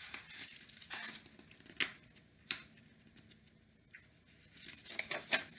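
Pages of a picture book being turned by hand: paper rustling and crinkling, with two sharp paper snaps in the middle and more rustling near the end.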